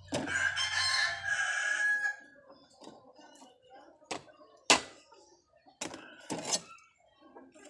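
A rooster crows once, a call of about two seconds at the start. A few sharp knocks follow, the loudest about halfway through, as a knife chops chicken on a chopping board.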